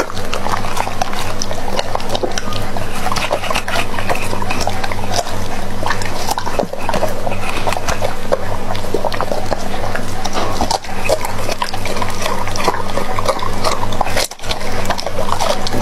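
Doberman pinscher chewing and crunching bok choy and raw meat, picked up close by a clip-on microphone: a dense, irregular run of crunches and mouth noises over a steady low hum.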